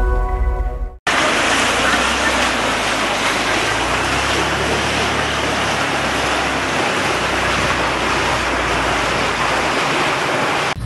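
A channel logo jingle cuts off sharply about a second in. Then a loud, steady rushing of water, even and without pitch, fills the rest.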